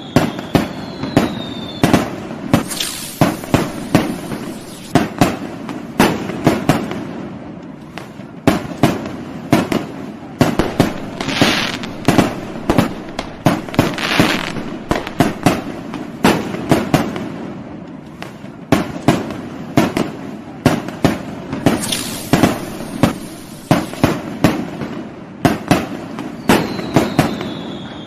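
Fireworks going off: a continuous run of sharp bangs, from single reports to several a second, with whistling tones near the start and near the end and a patch of crackling hiss about halfway through.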